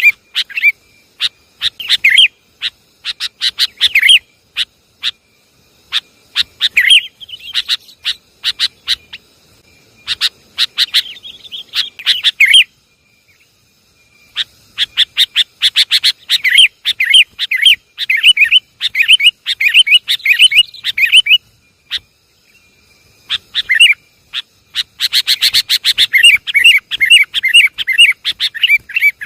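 Sooty-headed bulbul calls from a bird-lure recording: runs of fast, excited chattering notes and sharp chips, broken by two short pauses, one near the middle and one about three-quarters through.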